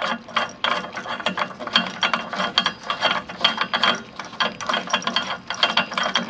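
Steel nut spun by hand along a long threaded bolt, its threads and a loose washer giving rapid, uneven metallic clicking and rattling.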